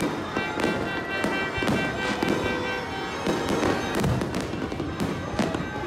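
Aerial fireworks exploding in a continuous run of overlapping bangs and crackles, about two or three sharp reports a second, with music playing underneath.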